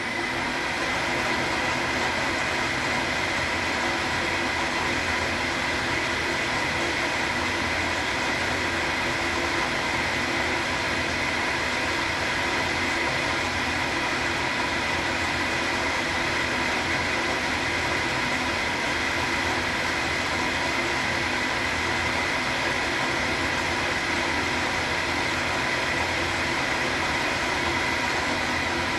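Schaublin SV-51 milling machine running steadily, milling the bottom of a machinist vice: an even mechanical noise with a steady whine that does not change through the pass.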